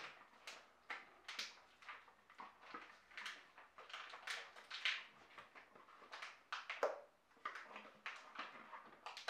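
Spatula scraping ground food out of a plastic food-processor bowl into a stainless steel mixing bowl: an irregular run of short scrapes and soft taps, the loudest about seven seconds in.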